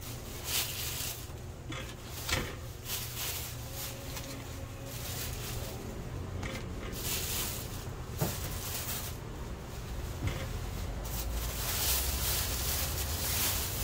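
Fruit being set down into a plastic basket: rustling handling noise and a few light knocks against the plastic.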